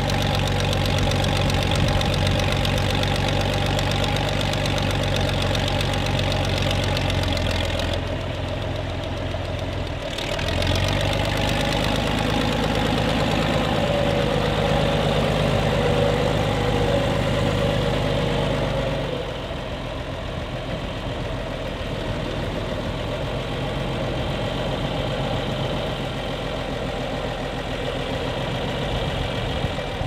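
John Deere 3040 tractor's diesel engine running steadily at low revs, with a knocking diesel note; its tone shifts briefly about eight seconds in and settles lower after about twenty seconds.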